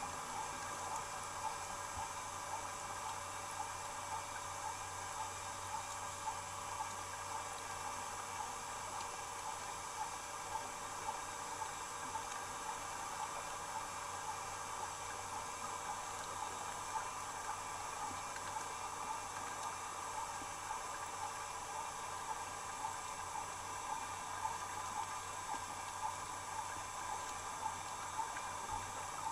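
Steady underwater ambience: an even hiss with several thin steady tones, and frequent faint, short clicks scattered through it.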